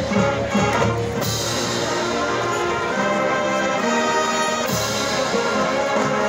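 Massed marching band of brass and percussion playing a Latin tune. The brass holds a long chord from about a second in until near the five-second mark, then the percussion-driven rhythm comes back in.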